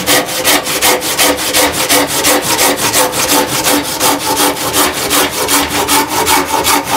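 Silky Sugoi pull saw, its blade freshly hand-filed, sawing through a clamped log in quick, even strokes, about two a second, with the teeth biting very hard.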